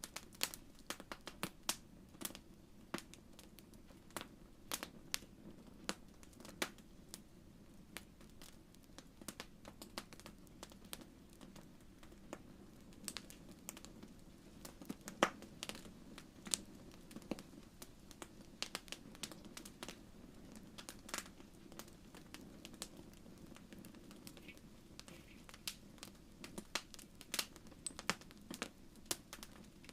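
Wood fire crackling in a fireplace: irregular sharp pops and snaps, some louder than others, over a steady low rush of the flames.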